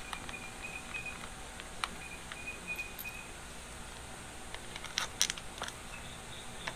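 Faint clicks and light metallic taps of hands fitting the aluminium intake manifolds and their bolts onto a Honda Goldwing flat-four engine, with a short cluster of sharper clicks about five seconds in.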